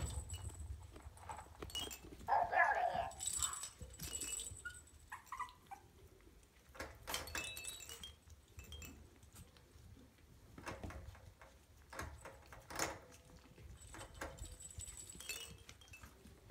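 Small bells in hanging plastic toy balls tinkling and clinking as a Maltese puppy bats and bumps the toys, with scattered light knocks. A short puppy whimper comes about two seconds in.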